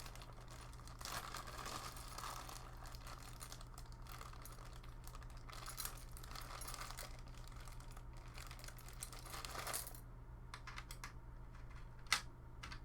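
Small metal cooler mounting pegs and hardware clicking and rattling as they are handled and sorted, busy for most of the stretch, then thinning to scattered clicks with one sharper click near the end.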